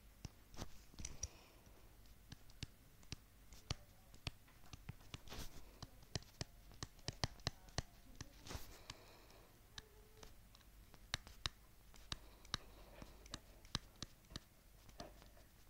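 Handwriting on a touchscreen: faint, irregular clicks and taps of a stylus tip striking and lifting off the glass as letters are written.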